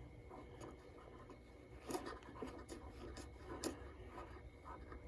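Faint clicks and rubbing from turning the band switch and tuning knob of a 1939 Philco radio, over a low steady hum.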